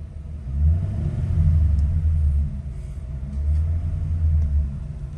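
2007 Ford Crown Victoria's 4.6-litre V8 revved twice in park, a deep rumble that swells and falls back each time. In park it makes none of the passenger-side rattle that it gives under throttle in gear.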